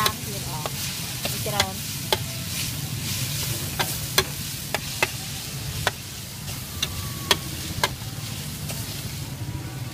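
A spatula scraping and clacking against a large flat wok as noodles, greens and bean sprouts are stir-fried, with a steady sizzle underneath. There are about a dozen sharp clacks at uneven intervals.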